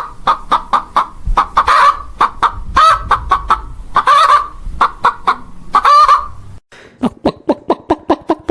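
Domestic fowl calling: a dense run of short, harsh clucking and honking calls, then, after a cut about six and a half seconds in, a quicker run of short calls that fall in pitch.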